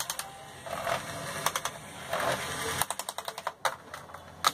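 Corded electric DC screwdriver whirring in short bursts as it backs out the screws of a laptop's bottom cover, mixed with a rapid run of clicks and taps as the cover is worked loose.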